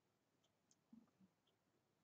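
Near silence, broken by a few faint clicks and a soft tap or two as a hand presses stickers down on planner paper.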